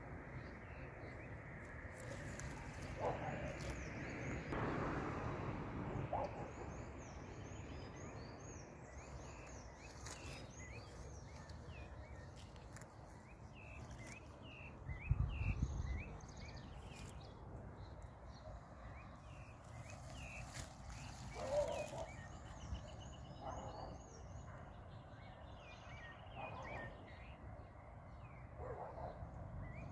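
Small birds chirping in the background over a steady low rumble, with a brief low thump about halfway through.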